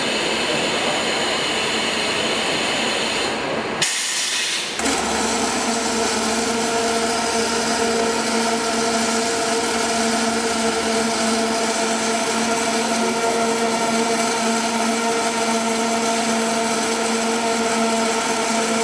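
Automatic circumferential welding machine arc-welding the seam of an LPG gas cylinder: steady welding and machine noise. About four seconds in the sound changes abruptly to a steady hum with several held tones over the noise.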